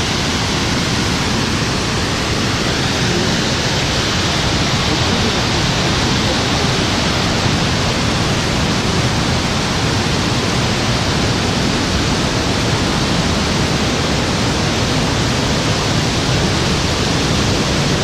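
Steady rush of a cascading rocky stream and its small waterfalls, an even, unbroken water noise.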